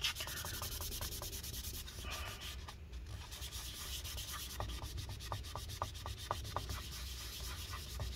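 A paper towel wet with isopropyl alcohol being scrubbed back and forth over old battery adhesive residue on a MacBook Pro's aluminium case. The steady rubbing carries a quick run of short squeaks in the second half.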